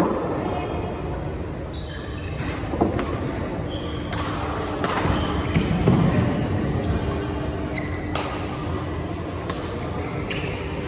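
Badminton rally: sharp racket hits on the shuttlecock every few seconds, mixed with short squeaks of shoes on the court mat, echoing in a large hall.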